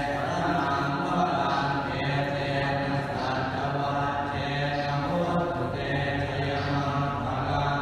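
Thai Buddhist Pali chanting, a steady low-pitched monotone recitation without pause, sung as the invocation of a consecration rite.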